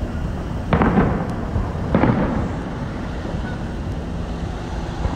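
Aerial fireworks shells bursting: two booms, one about a second into the clip and one about a second later, each trailing off in a rumbling echo, over a steady low rumble.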